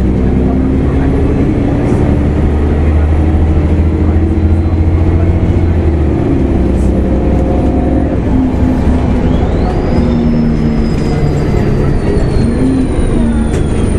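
A 2004 Gillig Phantom transit bus's Cummins ISL diesel engine and Voith D864.3E automatic transmission running. A steady low rumble changes pitch about halfway through, and a high whine comes in and slowly falls.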